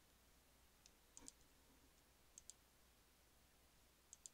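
Faint computer mouse button clicks, mostly in quick pairs, four times over a few seconds against near-silent room tone.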